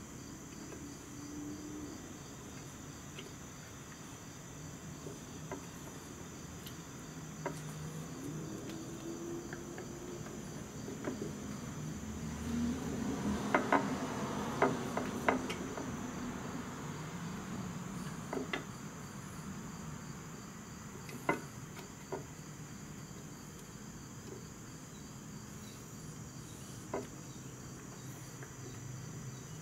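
Steady chirping of crickets, with scattered light clicks and taps throughout and a cluster of them about halfway through.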